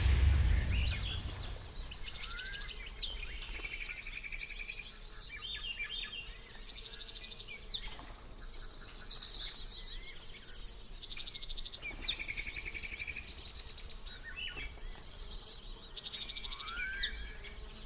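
Woodland birdsong: several small songbirds singing and chirping, with rapid trills and a few short rising whistles. A low rumble fades out in the first second.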